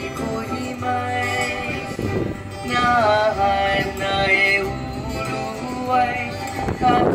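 Music with singing: a sung melody of held, wavering notes over instrumental accompaniment.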